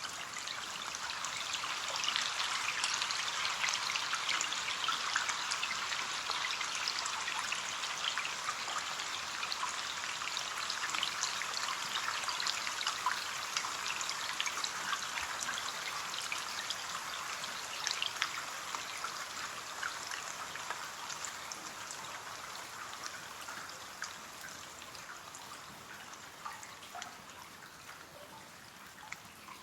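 Rain falling on a window pane: a steady hiss dotted with many small drop ticks, swelling a couple of seconds in and slowly dying away over the last several seconds.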